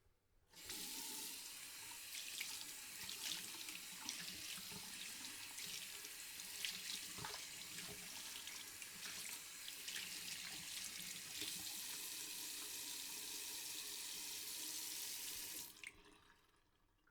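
Tap running into a sink while hands are washed under it, with small irregular splashes; the water comes on about half a second in and is shut off near the end.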